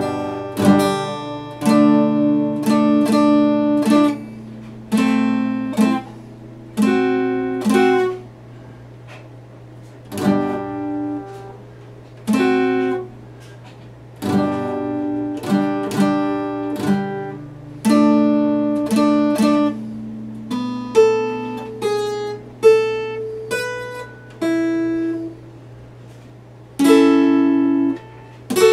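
Epiphone acoustic guitar played solo: strummed chords left to ring out, broken by short pauses. About three quarters of the way through there is a run of single picked notes.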